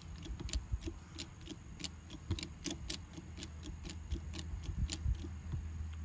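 A rapid run of light, sharp clicks, about three a second, over a low steady hum that grows louder about four seconds in.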